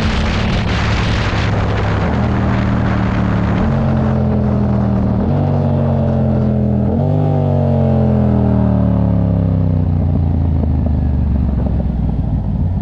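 A vehicle engine running under load. Its note jumps up in pitch four times, about every one and a half seconds, and sinks slowly after each jump, then fades toward the end.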